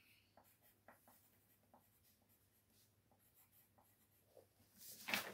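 Pencil scratching on paper in many short, faint strokes as a drawing is made, with a louder rustle near the end.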